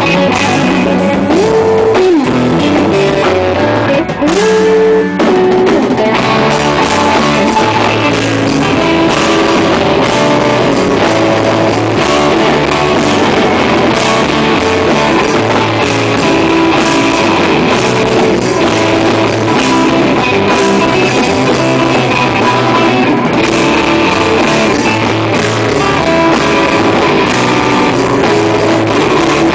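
A rock band playing loud and live, with electric guitars over a drum kit. There are a few sliding guitar notes in the first seconds.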